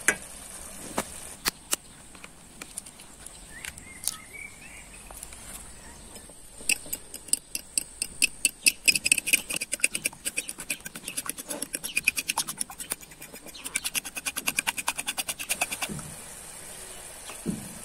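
A metal fork beating eggs in a ceramic bowl: rapid, even clinking strokes against the bowl from about seven seconds in until near the end. A few single clicks come before them.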